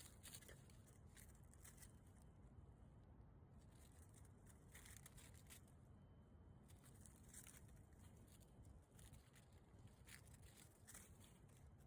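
Near silence, with faint irregular crackling and rustling.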